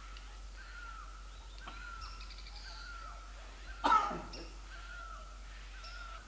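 Forest birds calling, a maroon oriole among them. A short, slightly falling whistled note repeats about every two-thirds of a second, and a louder, harsh call sweeping downward cuts in about four seconds in.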